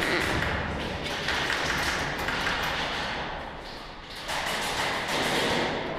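Airsoft game fire: many rapid sharp clicks and taps of shots and BB hits echoing in a concrete underground hall, with a steady noisy wash behind them and a brief lull about four seconds in.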